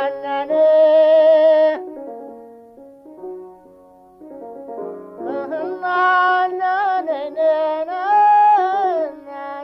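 Music: a high voice singing with vibrato over steady instrumental backing. A long held note near the start, a quieter lull of a few seconds, then wavering sung phrases.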